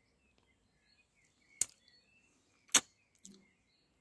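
Two sharp clicks about a second apart, the second the louder, then a softer click, over faint scattered birdsong.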